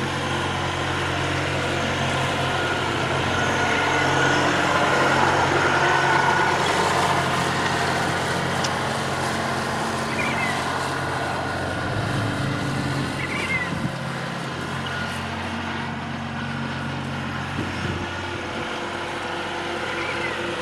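Compact tractor's engine running steadily under load while its rear rotary cutter shreds tall weeds, getting a little louder around five seconds in.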